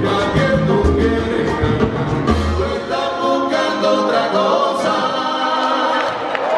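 Live salsa band with several male singers singing together in harmony over percussion. The bass drops out about three seconds in, leaving the voices on top.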